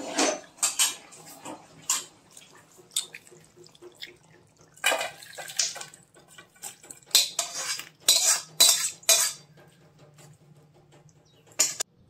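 Metal spatula scraping and clanking against a stainless-steel kadai while curry is emptied into a steel bowl: a series of short metallic scrapes and knocks.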